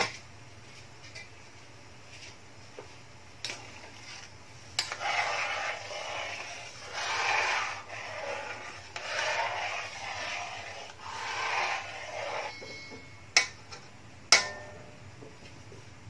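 A ladle stirring coconut milk in a large metal pan, scraping the bottom in repeated sweeps every couple of seconds for about eight seconds. Two sharp metallic clinks follow near the end.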